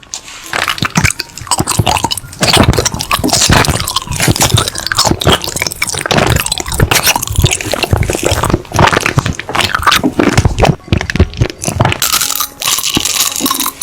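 Close-miked ASMR eating: a person biting and chewing crunchy food, with a rapid run of crisp crunches and crackles.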